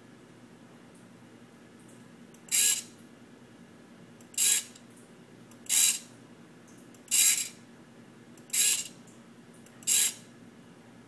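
A micro servo swinging its horn back and forth, six short whirring buzzes of its motor and gears, each a fraction of a second long, about every one and a half seconds.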